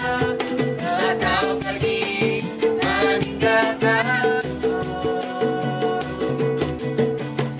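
Acoustic street-busker performance: young women singing a pop song over strummed ukuleles, a jingling tambourine and a small drum keeping the beat. The singing stops about halfway through and the ukuleles and percussion play on.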